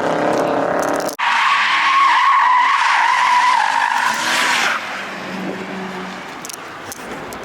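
A car engine revving up, then tyres screeching loudly for about three and a half seconds as a car spins its wheels or slides, before the sound drops to a quieter rumble of engine and tyre noise.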